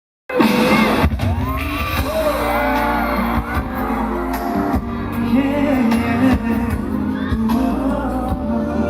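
Live pop music amplified through stadium speakers, with singing and audience shouts and whoops, starting abruptly just after the opening moment.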